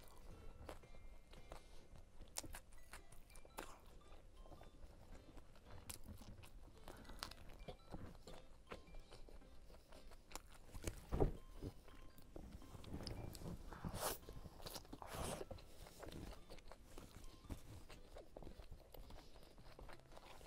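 Close-miked chewing and crunching of a roll filled with lotus root, lettuce, tofu skin, shredded potato and meat: a steady run of small crunches and mouth clicks, with a sharp loud bite about eleven seconds in and a burst of louder crunching a few seconds later.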